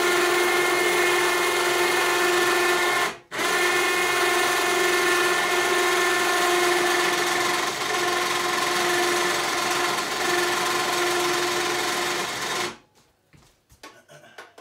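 12-volt four-wheeler winch motor running steadily with a whine as it pays out and lowers a hanging wolf carcass of about 107 pounds. It stops for a moment about three seconds in, runs on, and cuts off near the end, followed by a few faint clicks.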